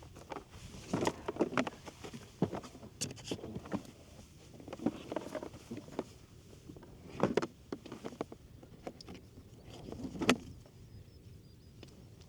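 Kayak paddle strokes: irregular splashes and knocks of the paddle in the water and against the hull, coming in clusters a second or more apart.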